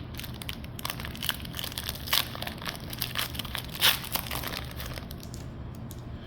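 Foil Pokémon booster pack wrapper crinkling as it is handled, a run of short crackles with the loudest about four seconds in.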